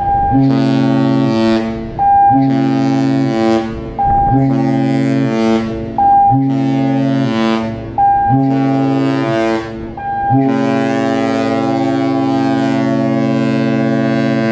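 Cruise ship's horn blowing a deep chord: five short blasts about two seconds apart, then one long held blast starting about ten seconds in. It is a sequence of short blasts followed by a long one, sounded for a crew emergency drill, the pattern of a ship's general emergency alarm.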